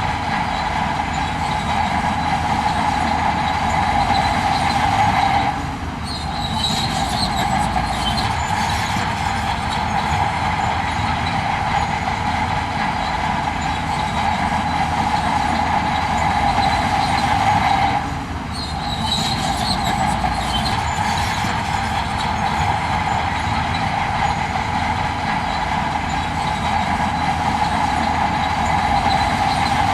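Heavy earthmoving machinery running steadily: a constant loud mechanical drone with a whine in it, dipping briefly twice.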